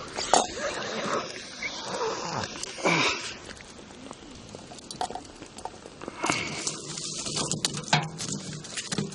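Irregular clicks, knocks and rustles of a boodog marmot carcass being handled by hand and with metal tongs, over a steady hiss.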